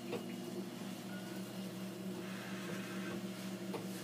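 Hemodialysis machine running with a steady low hum, its blood pump turning while the venous drip chamber fills with saline. A few faint clicks are heard along the way.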